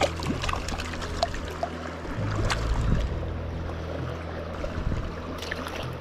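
Water of a small mountain-stream waterfall splashing and babbling steadily, with many small splashes. Soft background music with low held notes sits underneath.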